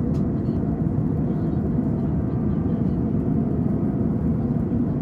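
Steady airliner cabin noise inside an Airbus passenger cabin: an even, low rumble of engines and airflow.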